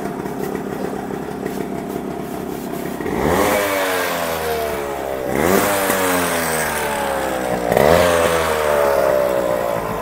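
Yamaha RX 100's two-stroke single-cylinder engine idling steadily, then revved three times, each rev rising sharply and falling back to idle.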